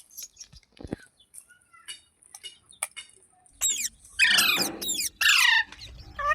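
Green parrot calling: faint clicks and soft chirps at first, then, past halfway, several loud, harsh calls, each sliding down in pitch.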